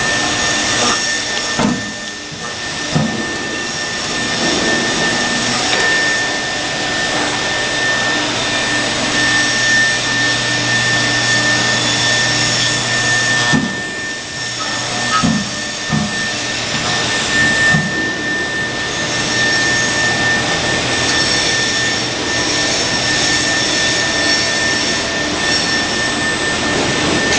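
Five-axis CNC router's HSD spindle running at high speed and carving a foam block: a steady high whine over a constant cutting hiss. A few short knocks sound now and then as the head moves.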